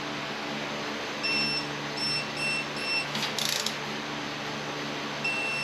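Electronic torque wrench beeping in a series of short, high, evenly spaced beeps, signalling that the set torque on an engine bolt has been reached. A brief rasping sound comes about three seconds in.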